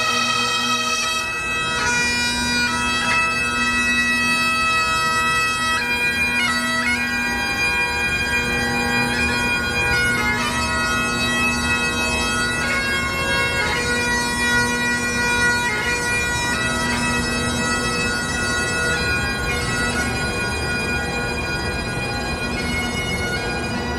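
Bagpipes playing a slow tune over their steady drones: held melody notes change every second or two, with quick grace-note flicks between them.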